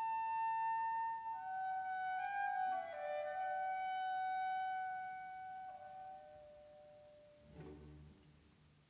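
Slow instrumental film music: a melody of long held notes that fades toward the end, with lower notes coming in about seven and a half seconds in.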